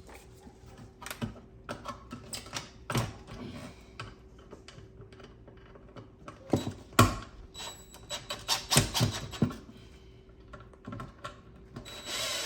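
Hands working an electrical cable and a plastic old-work box: a run of irregular clicks and knocks. The loudest knock comes about seven seconds in, with a quick cluster of taps around nine seconds and a short rustle near the end.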